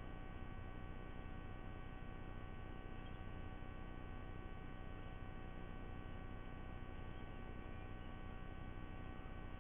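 Steady electrical hum with several held tones over a low hiss, from a nest camera's audio feed; nothing in it starts, stops or changes.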